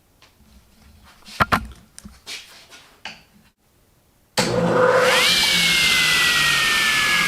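A few knocks and clicks, then about four seconds in a Grizzly G0771Z table saw is switched on and runs loudly. Its whine climbs quickly in pitch, then slowly sinks.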